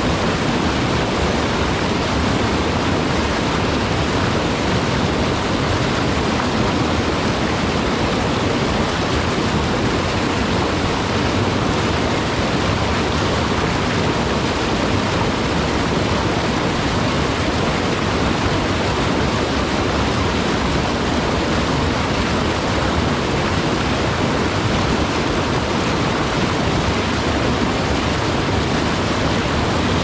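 Mountain stream rushing and splashing in white water over and around large boulders: a steady, unbroken rush.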